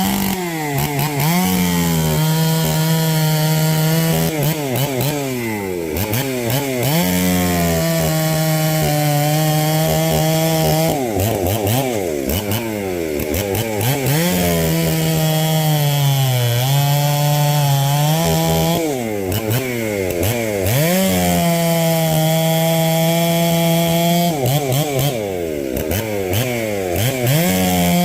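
Ported Stihl 038 Magnum two-stroke chainsaw cutting wood: the engine holds a steady pitch under load through several long cuts, with the revs swinging rapidly up and down between cuts.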